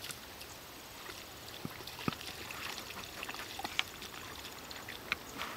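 Shallow water sloshing and splashing lightly as dogs wade through it, with a few small, sharp splashes or ticks scattered through.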